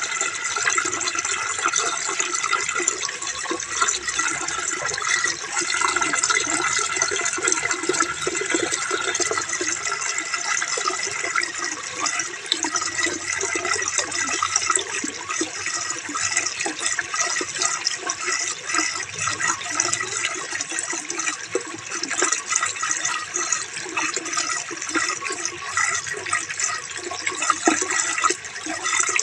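Running water splashing and gurgling steadily, with rain mixed in.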